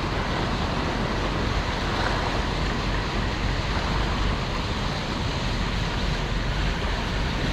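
Ocean surf washing on a beach, a steady wash of noise, with wind buffeting the microphone in low rumbles.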